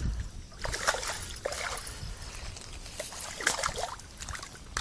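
Water splashing in a few irregular bursts as a hooked bass thrashes at the surface while it is reeled in.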